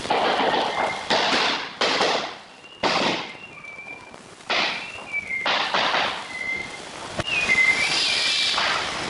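Laminate floor planks being knocked into place with a hammer: rough knocking and rattling in bursts of about a second, with one sharp knock near the end. A thin, high whistle steps up and down in pitch over it.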